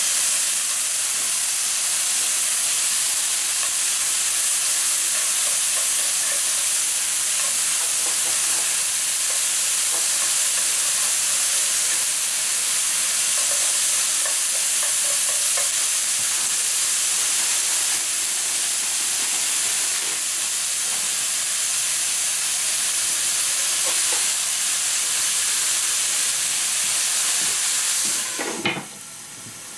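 Pork and vegetables sizzling steadily in a hot frying pan as they are stirred and turned with wooden chopsticks. Near the end water goes into the pan with a brief loud burst, and the sizzle drops sharply as the lid is put on to steam the noodles.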